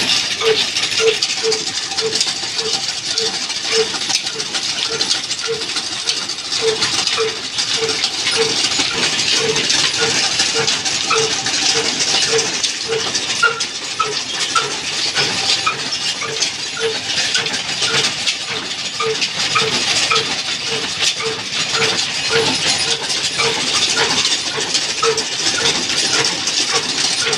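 Old black stationary diesel engine with a large flywheel running steadily under load, driving flat belts and pulleys on a line shaft for a wood-cutting machine. A regular beat comes about twice a second over a steady clatter and hiss of the belts and shafting.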